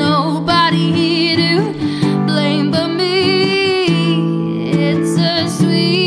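A woman singing held notes with vibrato over her own acoustic guitar playing.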